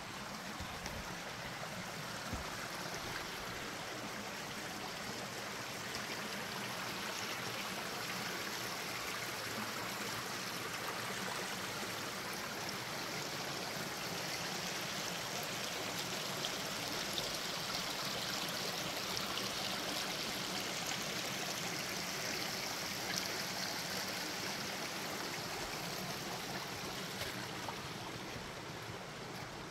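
Steady rush of a creek near a waterfall, growing a little louder toward the middle and easing near the end.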